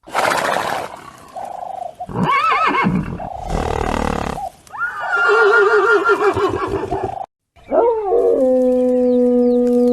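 Several different animal calls in a row, cut apart by a brief break. A quavering call about two seconds in, a wavering call in the middle, and near the end a long steady call held for about three seconds.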